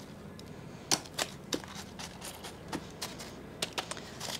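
Chunky potting mix of bark and perlite being pressed by hand into a plastic pot: a string of light, irregular clicks and rustles.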